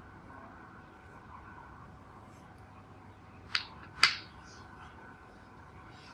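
Two sharp taps about half a second apart, the second louder, over a faint steady hum. They are hard objects knocked together while the paintbrush is away from the page being reloaded.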